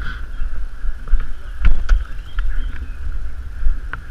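Wind buffeting and handling rumble on an action camera's microphone, uneven and strongest at the bottom, with a few sharp clicks and knocks scattered through it.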